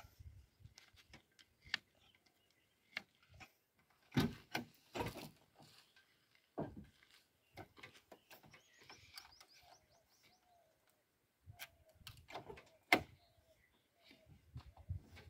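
Scattered clicks and knocks from hands working on a JCB backhoe loader: a hand-lever grease gun being pumped, then the cab door being opened and climbed through. Faint bird chirps come in around the middle.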